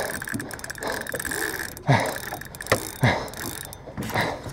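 Shimano Stella 10000PG spinning reel under the load of a big tuna, clicking rapidly and whirring mechanically. A few louder short sounds come about two, three and four seconds in.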